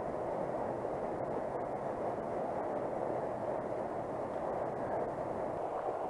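Steady rushing of water from a waterfall.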